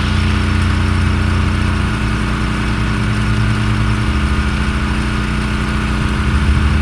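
An engine running steadily, its low hum shifting pitch a couple of times.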